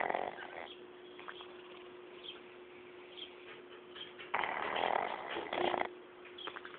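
A sleeping pet snoring: the end of one snore at the very start, then one long snore of about a second and a half near the end. A faint steady hum runs underneath.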